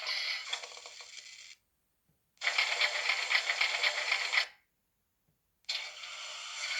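Sound effects from a Märklin 37160 H0 model steam locomotive's digital sound decoder, played through its small loudspeaker. A sound fades out over the first second and a half. After a short silence comes a dense clattering that lasts about two seconds, and near the end a steady sound begins.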